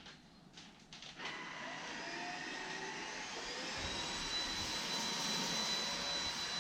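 Cordless stick vacuum switched on about a second in, its motor whine rising as it spins up, then running steadily and growing a little louder, with a low rumble joining in as the head works the rug.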